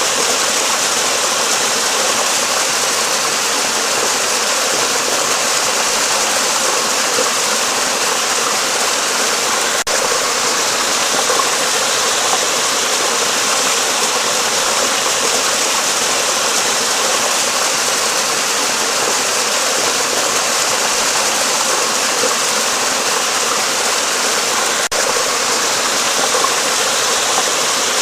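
Flowing stream water rushing in a steady, unbroken wash.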